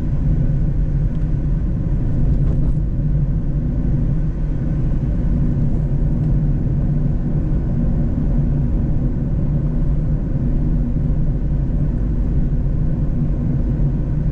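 Mazda Roadster (MX-5) driving at a steady speed: a steady engine hum with road rumble, holding an even pitch with no gear changes.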